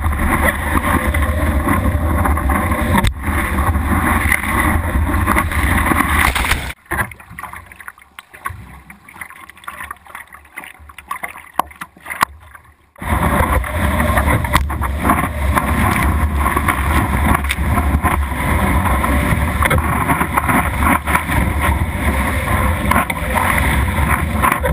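Water rushing past a surfboard with wind buffeting the board-mounted camera's microphone, a heavy low rumble. About seven seconds in it drops to quieter water lapping, and the rush returns at about thirteen seconds.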